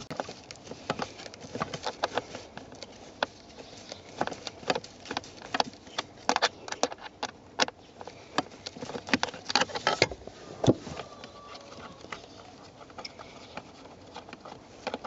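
Irregular sharp clicks and small taps of a screwdriver turning out the mounting screws of a car's under-dash electronic toll collection unit, with the plastic trim and bracket knocking as it is handled.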